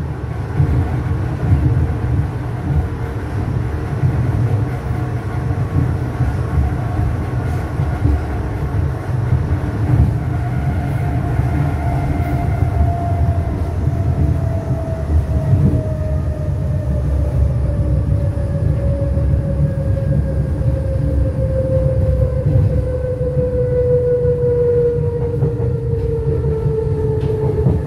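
Berlin S-Bahn Class 485 electric train, a steady low rumble with a whine over it that slowly falls in pitch through the second half.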